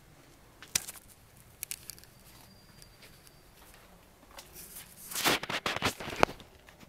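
Scattered sharp clicks, then a burst of crackling and rustling about five seconds in: handling noise from a hand-held camera being carried around the truck.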